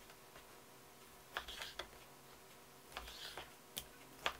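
Kitchen knife slicing elk backstrap into steaks on a wooden cutting board: a few faint slicing scrapes, with sharp taps of the blade on the board near the end.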